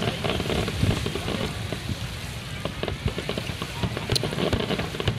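Aerial fireworks bursting: a dense crackle of sharp pops over low rumbling booms, with one sharper crack about four seconds in.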